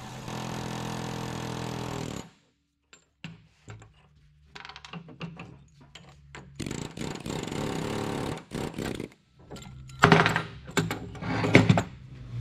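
Air chisel hammering on the end of a seized bolt in a truck torque rod end, run in two bursts: one of about two seconds, then a longer one starting past the middle. Near the end come several loud knocks.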